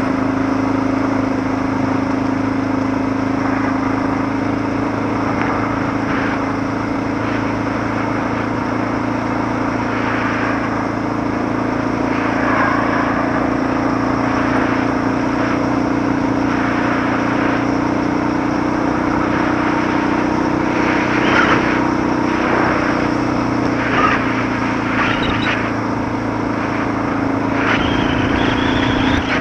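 Suzuki DR650's single-cylinder four-stroke engine running at a steady, low road speed while the motorcycle rides a rough two-track dirt road. A few short bursts of noise come over the engine in the second half.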